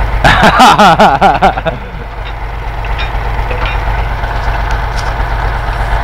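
Ural logging truck's diesel engine running steadily to power the log-loading crane. Over it, in the first second and a half, comes a loud warbling tone that wavers up and down in pitch, with sharp clicks.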